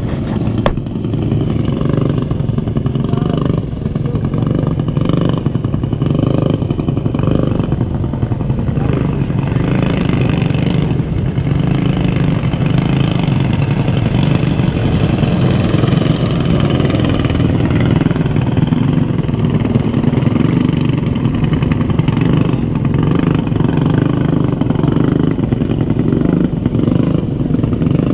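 Racing lawnmower engines running loud and steady, the small engines revving with little letup.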